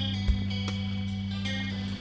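Background music: guitar over a held low bass note, with a few light percussive hits.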